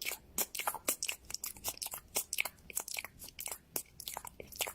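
An animal chewing something crunchy: a quick, irregular run of sharp crunches, several a second.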